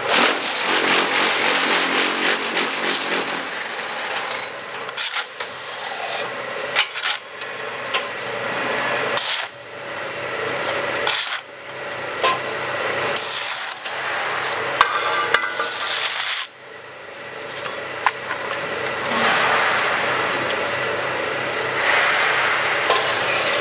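QTJ4-26A semi-automatic concrete block-forming machine running through its forming cycle: a steady motor hum under the rattling clatter of the vibrating mould and steel frame. The noise swells and falls several times as the stages change, dropping sharply about sixteen seconds in.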